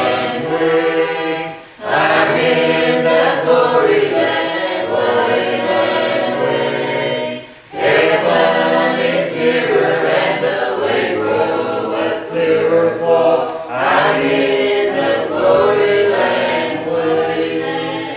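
A group of voices singing a hymn in harmony, a cappella with no instruments. There are two short breaks between phrases, about two and eight seconds in.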